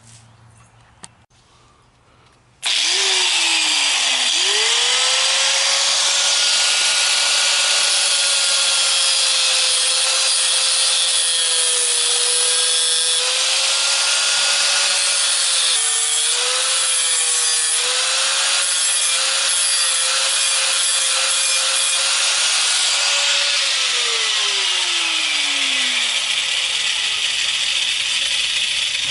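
A power tool starts with a quickly rising whine, runs steadily for about twenty seconds with a harsh grinding or cutting noise, then is switched off and winds down over a few seconds.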